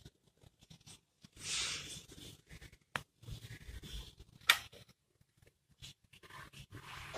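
Faint, scattered clicks, scrapes and rustling, with a louder sharp click about four and a half seconds in.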